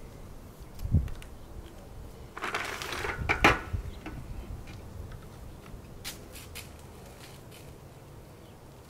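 PVC pipe pieces and plastic T-fittings being handled and set down on a glass tabletop. There is a dull knock about a second in, a rustling scrape with a sharp plastic click around three seconds in, then a few light clicks.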